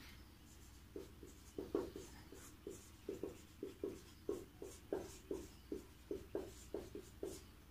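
Marker pen writing on a whiteboard: a run of short strokes, about three a second, starting about a second in.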